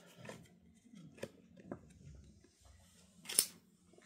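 Quiet handling of trading cards: a few small clicks and taps, then one louder, short, crisp card sound about three and a half seconds in.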